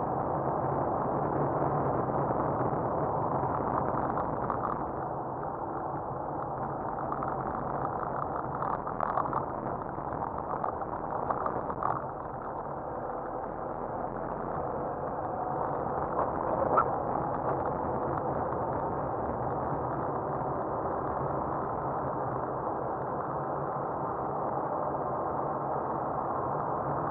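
Car driving on a snow-covered road, its engine and road noise running steadily inside the cabin, with the engine note rising and falling gently and a few brief knocks and clicks.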